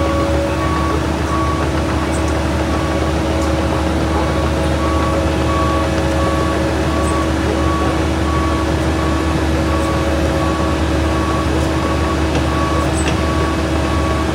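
Heavy diesel machinery of a cold milling machine and an excavator running steadily, with a backup alarm beeping about every two-thirds of a second.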